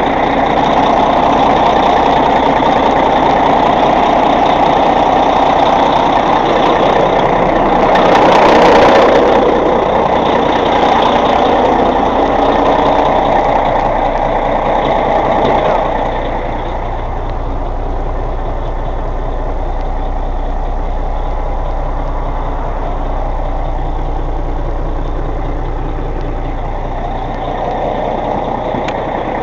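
Caterpillar C15 straight-six diesel idling steadily in a Kenworth T600 soon after a cold start. There is a short hiss about eight seconds in, and the engine sound drops a little in level just past halfway.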